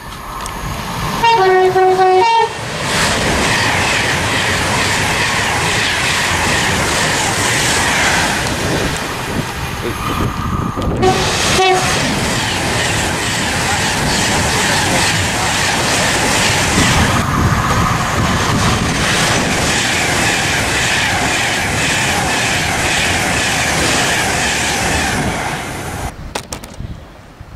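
Express passenger train sounding its horn loudly about a second in, with a second short toot about eleven seconds in, then running through the station at speed with a long, steady rushing noise of wheels and air that cuts off suddenly near the end.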